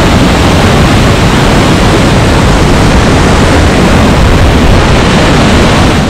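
Gljúfrabúi waterfall heard close up from inside its narrow rock gorge: a loud, steady rush of plunging water and spray.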